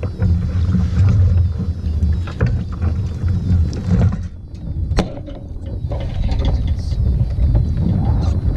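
Wind rumbling on the microphone and water moving around a kayak, with scattered knocks and clicks; it dips quieter briefly about four seconds in, broken by one sharp click.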